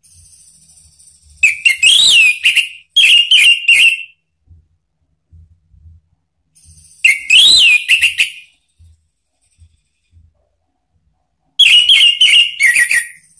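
Orange-headed thrush singing three loud whistled phrases, each with a quick rising-and-falling note, separated by pauses of a few seconds. Faint, very high thin notes come just before the first two phrases.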